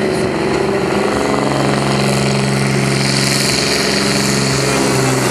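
Pulling truck's 18-litre, 1000-horsepower diesel engine running hard under full load. Its note drops lower about a second in, and a high hiss comes in about three seconds in.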